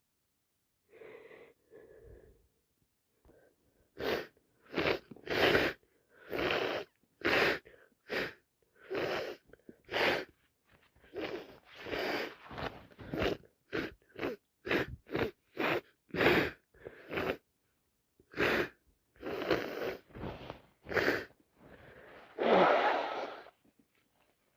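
A woman with a heavy head cold sneezing over and over in a long, rapid string of short bursts, after a couple of faint sniffs at the start. The longest and loudest sneeze comes near the end.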